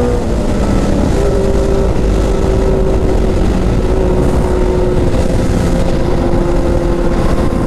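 Sport motorcycle engine running at high, nearly steady revs that sag slightly, over heavy low-pitched noise.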